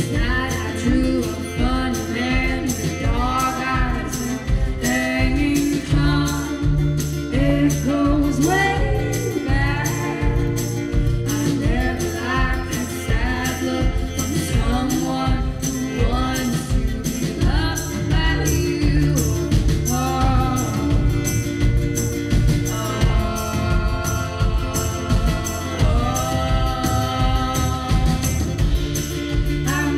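Live band performing a song: sung vocals over keyboard, acoustic guitar and drums with a steady beat.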